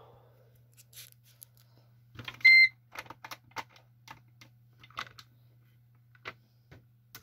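A single short electronic beep about two and a half seconds in, the loudest sound, amid a scatter of light clicks and taps around a laptop keyboard. A low steady hum runs underneath.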